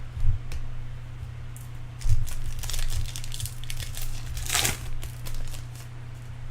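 Foil wrappers of Bowman Chrome baseball card packs crinkling and tearing as the packs are opened and the cards handled, with a louder crinkle in the second half and a few light knocks. A steady low hum runs underneath.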